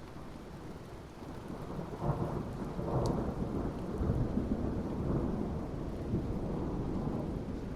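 Thunder rumbling over steady rain. The rumble swells about two seconds in, with a sharp crack near three seconds, rolls on, then eases slightly near the end.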